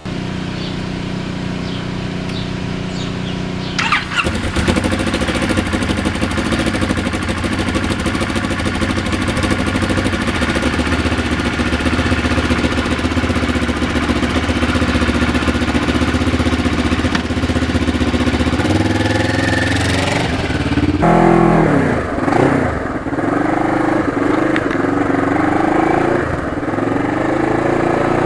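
Motorcycle engine running steadily, louder and busier from about four seconds in. About 21 seconds in it changes to rising notes that climb and drop again and again as the bike accelerates through the gears.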